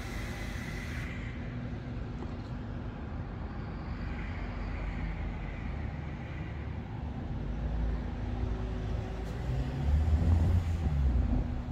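Road traffic: a steady low engine hum, with a vehicle growing louder from about eight seconds in, loudest near the end.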